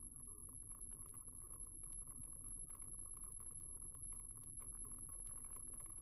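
Triumph Scrambler motorcycle riding along, a steady low rumble of engine and wind, with a light patter of small clicks and a constant faint high-pitched whine.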